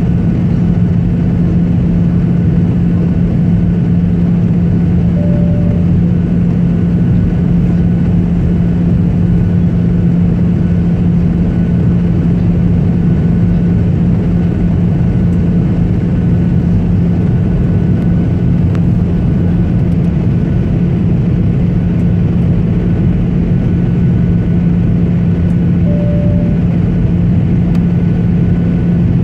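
Steady drone of jet engines and airflow inside a passenger airliner's cabin on the landing approach, with a strong low hum. A short beep sounds twice, about five seconds in and near the end.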